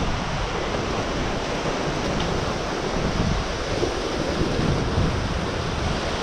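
Ocean surf washing steadily onto the beach, with wind buffeting the microphone and adding a low rumble.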